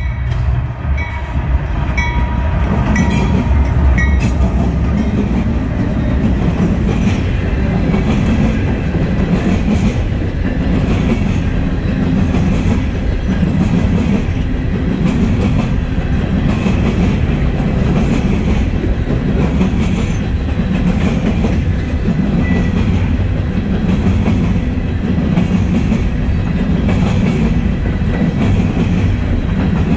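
Norfolk Southern coal train passing close by. The lead diesel locomotives rumble past in the first few seconds, then a long string of coal hopper cars rolls by with a steady, loud clatter of wheels on the track.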